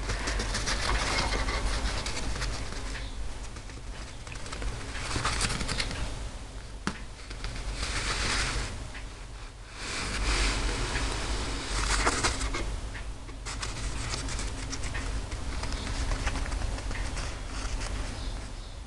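Cloth rustling in soft swells as a kitten scrabbles and paws on a jacket and a hand moves over the fabric.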